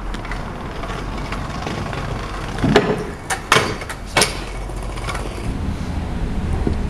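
Kick scooter run over a small kicker ramp on pavement: several sharp clacks of the wheels and deck hitting the ramp and landing, between about three and four seconds in, over a steady low rumble.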